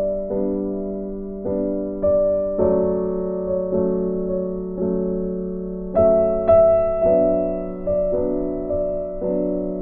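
Soft, slow piano music: chords struck about once a second and left to ring and fade over a held low note.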